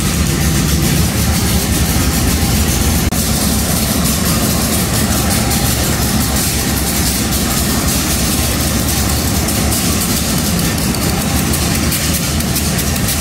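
Diesel-electric locomotive engine idling at a standstill, a steady low rumble, left running while the locomotive waits for its train.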